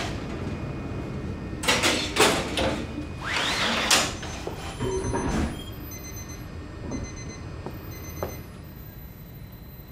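Bakery workroom noise: a steady machine hum under a few sharp clatters about two seconds in, then a rising sliding scrape near four seconds and scattered knocks later, with faint short high beeps.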